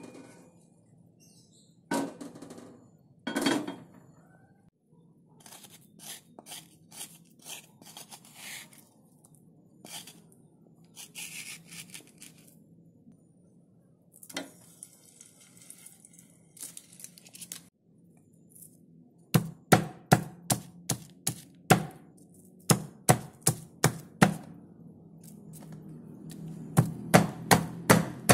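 A few knocks of a metal frying pan and wooden spatula, then light, sparse crackling from hot oil. In the last third, a stone pestle pounds lemongrass stalks on a stone mortar (cobek), sharp strikes about three a second in short runs.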